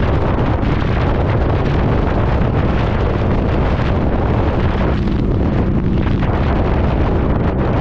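Wind buffeting the microphone of a Harley-Davidson V-Rod cruising at road speed on a wet road. The bike's liquid-cooled V-twin runs steadily underneath.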